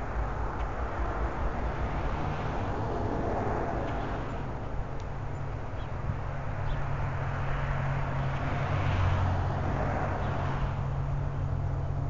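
Steady low mechanical hum under a rushing noise that swells twice, most strongly about three-quarters of the way through, then eases; a few faint ticks. No clear bird calls.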